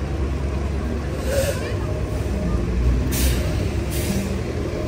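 City street traffic on a rain-wet road: a steady low rumble of engines, with a short hiss about a second in and two sharper hisses near three and four seconds in.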